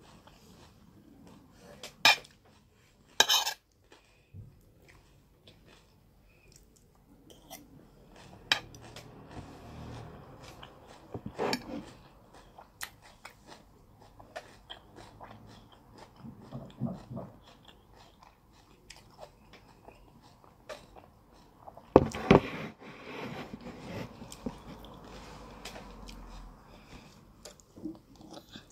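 Close-up eating sounds: a metal spoon clinking and scraping against a plate of jollof rice, salad and chicken, with chewing and crunching in between. A few sharp clinks stand out, the loudest cluster about two-thirds of the way through.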